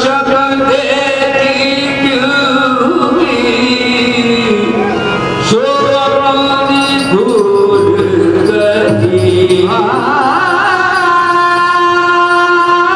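Qawwali: male voices singing over harmonium accompaniment. The lead voice climbs to higher, wavering held notes about ten seconds in.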